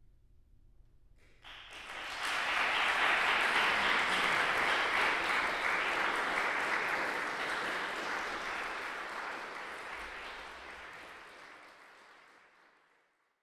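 Audience applauding, starting about a second in, swelling quickly, then dying away gradually near the end.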